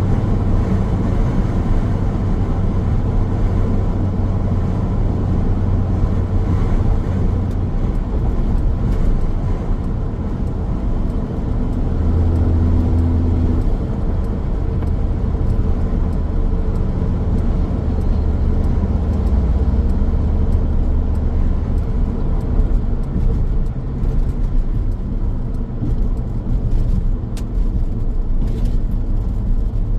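Steady low rumble of a car driving along a road: tyre and engine noise at cruising speed. A short hum rises about twelve seconds in.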